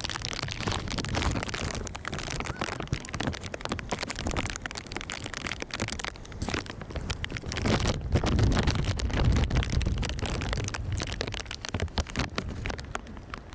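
Gusty wind buffeting the microphone, with irregular crackling and a low rumble that swells about eight seconds in.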